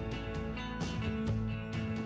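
Background music: an upbeat country tune with strummed and plucked acoustic guitar and a steady beat.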